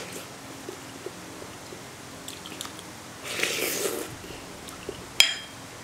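Eating soft pea-starch jelly from a spoon: a slurp of a spoonful about three seconds in, with soft chewing, then a metal spoon clinks once with a short ring against the bowl near the end.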